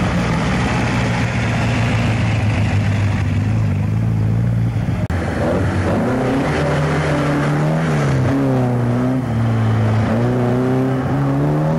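A car engine revs hard through a cone slalom, its pitch rising and falling again and again as the driver accelerates, lifts off and changes gear. A brief break in the sound about five seconds in.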